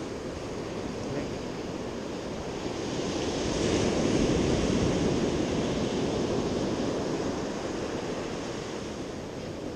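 Ocean surf breaking and washing up a sandy beach, swelling louder about three seconds in and easing off again.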